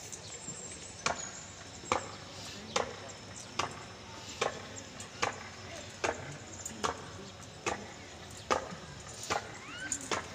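A marching drum struck in a slow, steady beat, one crisp stroke a little more than once a second, keeping time for marching, over a faint murmur of voices.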